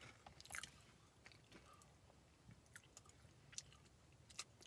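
Near silence with faint chewing of an Oreo cookie, broken by a few small, scattered clicks.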